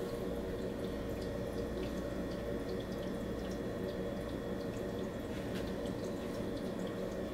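Steady low room hum with a few faint soft ticks and rustles as a cotton T-shirt is handled and turned over.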